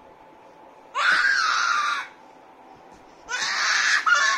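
A toddler's two high-pitched, excited shrieks of play, each about a second long, the second one near the end.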